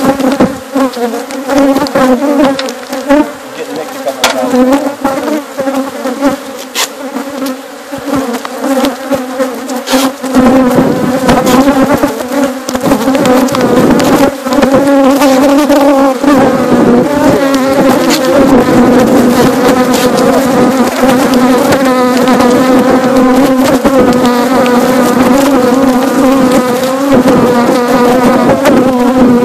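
Swarm of honeybees buzzing thickly around the microphone, a steady hum that grows louder and fuller about ten seconds in: a colony stirred up as its nest in a wall cavity is opened. A few sharp knocks come in the first ten seconds.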